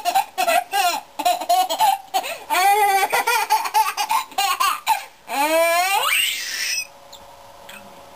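Baby laughing in a string of short, quick high-pitched laughs, then, about five seconds in, a long squeal that rises in pitch.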